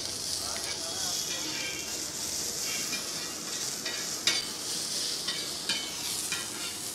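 Sliced onions and capsicum sizzling in olive oil on a flat iron griddle, with a steady hiss, while a slotted metal spatula stirs them, scraping and clicking against the iron a few times.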